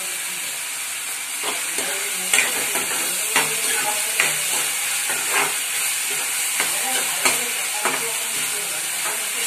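Chopped onion frying in oil and butter, sizzling steadily in an aluminium kadhai, while a metal spatula stirs it, scraping and clinking against the pan at irregular moments from about a second and a half in. The onion is being browned.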